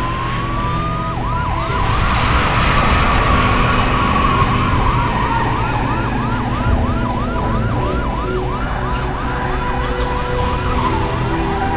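Emergency vehicle siren yelping, its pitch sweeping up over and over a little more than twice a second after one slower rising note. It sits over a low steady drone, with a rush of noise in the first few seconds.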